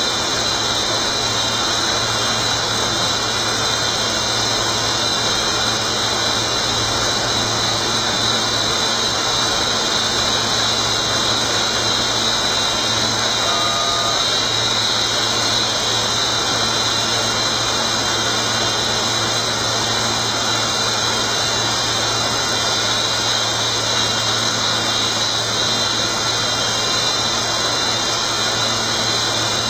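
A 9060 CNC router running steadily, its spindle giving a constant high-pitched whine over a low hum.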